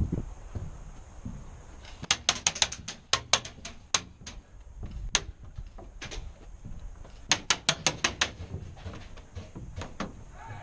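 Airsoft guns firing: a rapid string of sharp shots about two seconds in, then a few single shots, and another quick string about seven seconds in.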